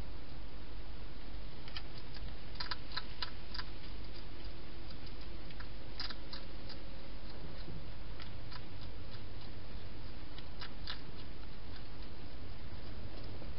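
Wild hedgehog chewing food at a feeding bowl: irregular crisp clicks and crunches, some in quick clusters, over a steady hiss.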